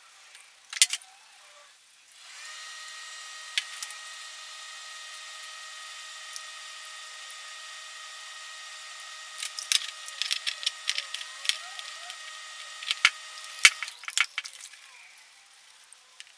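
A bristle brush scrubs steel bottle-jack parts in soapy water, with sharp clicks and knocks of metal and brush on metal, most often near the end. A steady hum runs underneath from about two seconds in until about fourteen.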